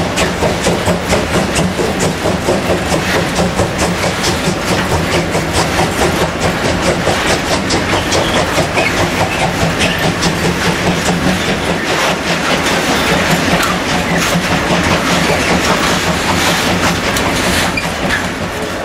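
Coal train's hopper wagons rolling past, wheels clattering over rail joints in a steady, even rhythm under a constant low rumble.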